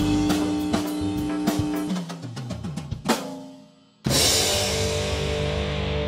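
Rock music on drum kit and electric guitar: steady drum beats under a held note, a drum fill with falling pitch, then one big hit that dies away almost to silence. About four seconds in, a loud distorted electric guitar chord starts and rings on.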